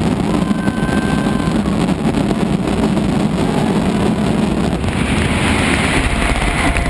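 Mascletà firecracker barrage going off in a dense, continuous rumble of blasts. From about five seconds in, the crowd's cheering and clapping rises over it.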